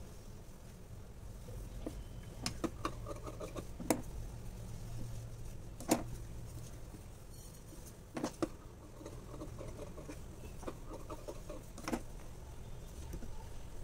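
Light handling sounds as thin net fabric is moved about on a tabletop: scattered sharp clicks and soft rustling, irregular and about a second or two apart, over a low steady hum.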